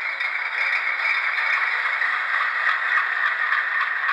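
Steady locomotive sound from the LokSound Select sound decoder in an HO-scale ALCO C-628 diesel model, played through its standard dual speakers. The sound is thin, with almost no bass, and carries faint light ticks.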